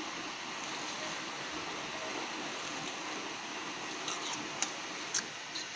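Steady even hiss of welding equipment running, with four short sharp clicks in the last two seconds.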